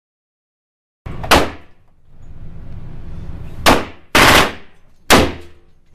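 Four single rifle shots from a G36 5.56 mm assault rifle, starting about a second in and unevenly spaced, the last three coming in quick succession. Each crack is loud and echoes in the enclosed range lane.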